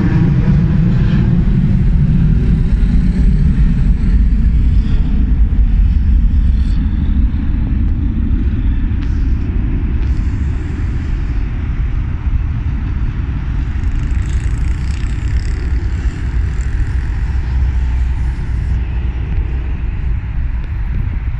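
Highway traffic, with buses and cars passing and a steady low rumble. Over the first couple of seconds a pitched engine drone slides down in pitch and fades out.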